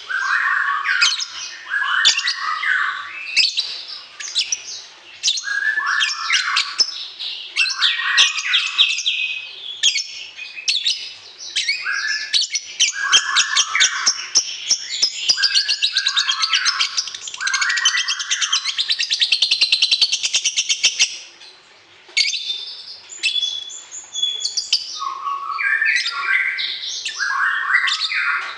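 Songbird singing a fast, varied string of chirps and trills, with one long rapid rattling trill about halfway through.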